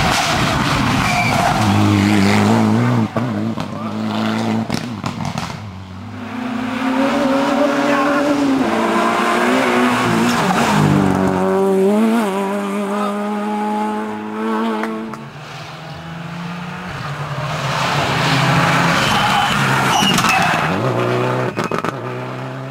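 Rally cars being driven flat out on a narrow asphalt special stage, one after another. The engines rev high and drop back sharply at each gear change as the cars approach and pass close by.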